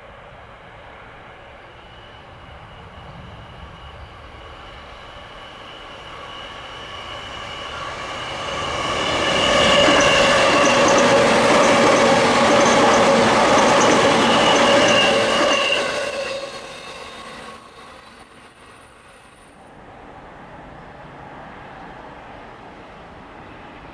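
JR East 209 series electric commuter train running past close by. Its running noise builds up and stays loud for about six seconds, with several steady whining tones over the rumble of wheels on rail, then drops away fast. A quieter train running sound follows near the end.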